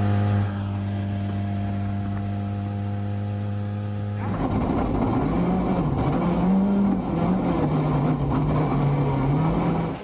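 Rally car engine: a steady, even hum for about four seconds, then a sudden change to louder, rougher engine noise whose pitch rises and falls.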